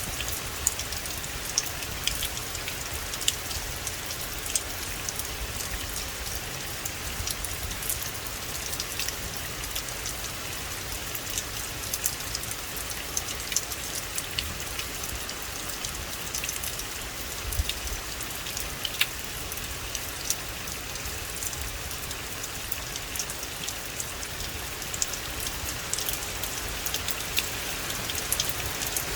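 Steady rain falling on a forest: an even hiss with many individual drops ticking sharply.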